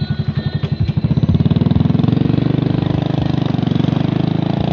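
Vehicle engine running under way, its firing pulses quickening about a second in as it speeds up, then holding steady.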